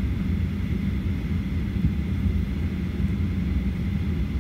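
Steady low rumble with a faint, steady high whine inside the passenger cabin of a Boeing 737-800 on the ground before departure.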